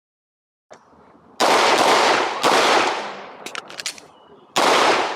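Four 9mm pistol shots from a Glock 19 during a practical-shooting stage, the first three close together and the last after a pause of about two seconds, each with a short ringing echo, and a few light clicks between them.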